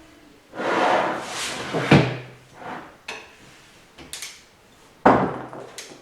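Tools and metal parts being handled on the workbench: scraping and rattling with a sharp knock about two seconds in, and another knock about five seconds in, each leaving a short low ring.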